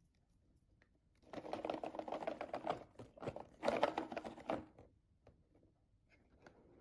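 Small hard pieces clattering in two quick bursts, each about a second and a half long, like jigsaw puzzle pieces being shaken or tipped out.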